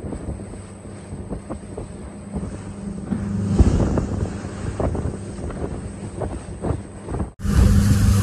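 Boat's outboard motor running under way with a steady low hum, with wind buffeting the microphone and scattered knocks as the hull meets choppy water. Near the end the sound breaks off sharply and the engine comes back louder.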